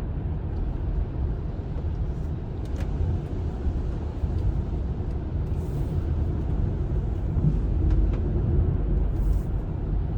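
Steady low rumble of road and engine noise heard inside a moving car's cabin, driving downhill through a road tunnel.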